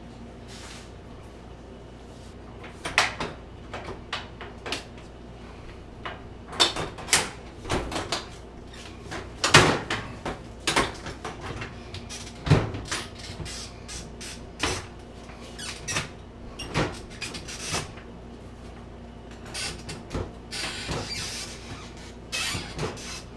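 Irregular metallic clunks, knocks and scrapes of an old Beaumark oven door and its hinges being handled and worked in the oven's hinge slots. The hinges are not seating right.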